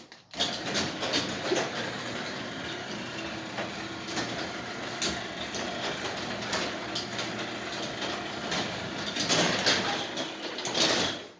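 Garage door running through its travel under a motorized opener: a steady motor hum with rattling and clicking from the door and its track. It starts suddenly and stops about eleven seconds later.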